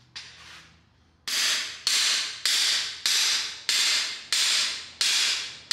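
Hammer blows on the driver shaft of a cam bearing installation tool, pressing a new camshaft bearing into the cam bore of an LS V8 block. About eight evenly paced strikes come roughly every 0.6 s from about a second in, each ringing out metallically.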